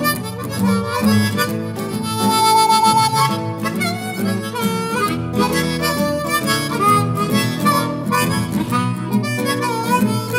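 Blues music led by a harmonica over a guitar accompaniment, with one note held for about a second near the start.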